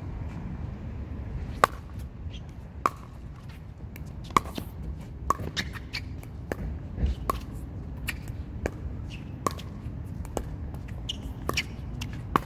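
A doubles pickleball rally: paddles striking the plastic ball about once a second, nine or ten sharp knocks, each with a short ring. The first, about a second and a half in, is the loudest.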